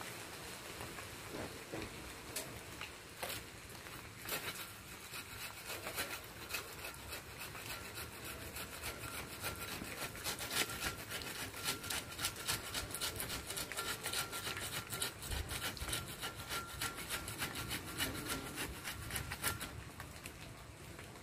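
Hacksaw cutting through a storm-broken jackfruit branch with quick, even back-and-forth strokes. The strokes start a few seconds in, speed up about halfway through and stop shortly before the end.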